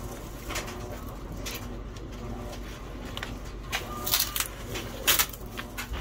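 Cardboard-framed pleated furnace filter being handled and shifted against the furnace cabinet: scattered short scrapes and clicks, with the loudest rustles around four and five seconds in, over a steady low hum.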